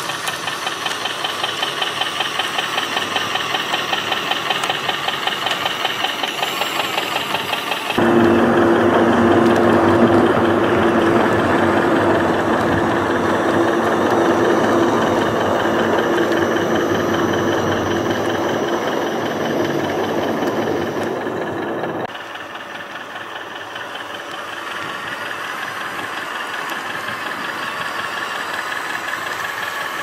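Diesel engine sound from an RC model's sound unit, running with a fast, even knocking chug. It jumps louder with a steady hum about a third of the way in, then drops back abruptly.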